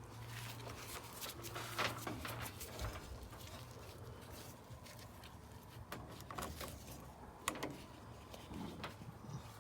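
Faint handling sounds: scattered small clicks, taps and rustles of multimeter test leads and clips being set up on a dryer's control board, over a faint low hum.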